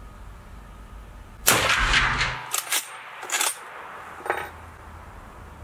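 A single shot from a Pedersoli 1886 Classic lever-action rifle in .45-70 Government, about a second and a half in, its blast echoing for nearly a second. Then come a few sharp metallic clacks as the lever is worked.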